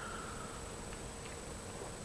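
A quiet, soft sip of hot tea from a mug that trails off within the first second, over a faint steady electrical hum and hiss.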